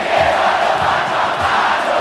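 Football stadium crowd chanting together in the stands, a dense wall of voices, with a steady low beat about twice a second underneath.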